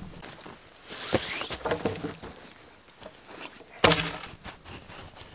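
Rustling and light footfalls of a dog moving over dry twigs and leaf litter, with one sharp crack about four seconds in.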